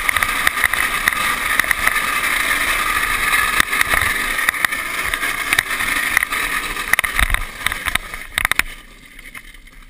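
A drift trike rolls fast downhill on asphalt: a steady rush of wheel and wind noise, with scattered knocks and rattles from the trike over the road. The noise dies down after about eight and a half seconds as the trike swings sideways and slows.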